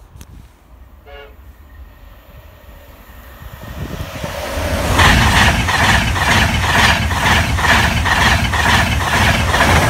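LNER InterCity 225 express, Mark 4 coaches behind an electric locomotive, approaching and passing close at speed. Its rush swells from about three seconds in, then turns loud with a fast, even clatter of wheels over the rail joints, about three beats a second. It cuts off abruptly at the end.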